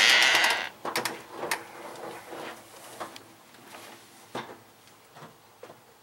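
Glass storm door moving on its closer: a loud rattling hiss that stops about half a second in, followed by scattered light knocks and clicks.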